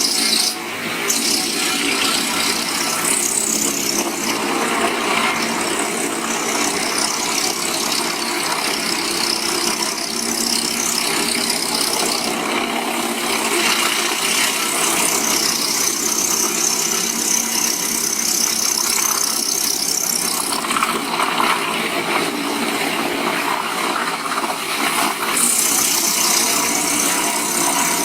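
Large engine-driven wood chipper running, a dense mechanical din whose upper hiss shifts in strength several times.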